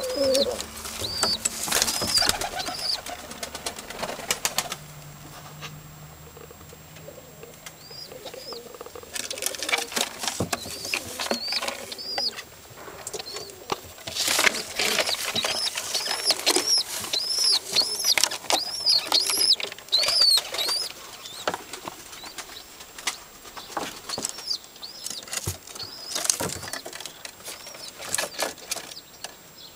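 Tumbler pigeons in a loft nest box: runs of rapid high-pitched peeps, with wing flapping and rustling in the nest.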